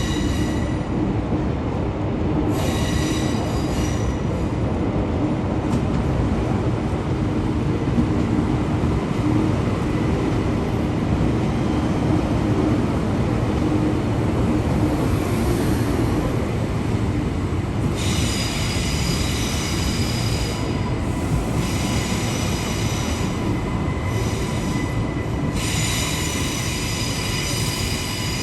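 Queensland Rail suburban electric train running through the station with a steady low rumble, its wheels or brakes letting out a high-pitched squeal that comes and goes several times, longest near the end.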